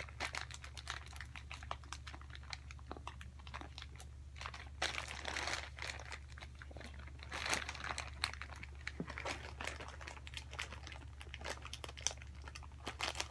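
Plastic mailer bag crinkling and crackling as it is handled, in irregular bursts that are busiest around the middle.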